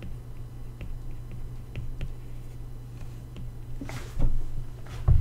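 Light scattered clicks and taps of a stylus writing on an iPad screen, over a steady low electrical hum. A brief louder noise comes about four seconds in, and a short thump near the end.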